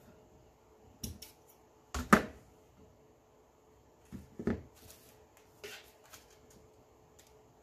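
Craft materials and tools being handled on a work table: a few scattered light knocks and clicks, the loudest about two seconds in.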